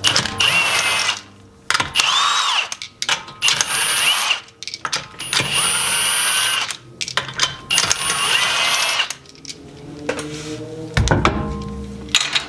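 Impact wrench run in five bursts, spinning the lug nuts off the wheel, with metal clinking between bursts. A low thump comes about eleven seconds in.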